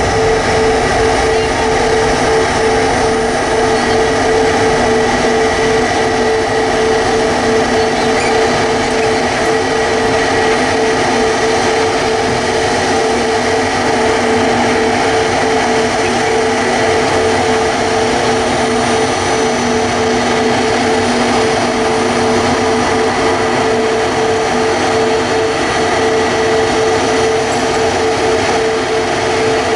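Steady jet-engine noise at the airport with a constant droning whine; it holds level without building or fading.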